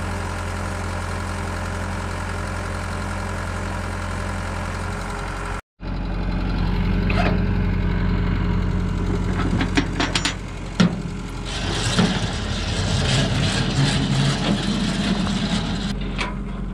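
Diesel flatbed tow truck's engine running at a steady idle while its tilted bed and winch are worked, with scattered metallic clanks from the winch cable and hooks in the second half.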